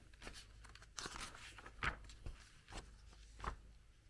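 Paper pages of an instruction booklet being turned by hand, with several short rustles and crinkles.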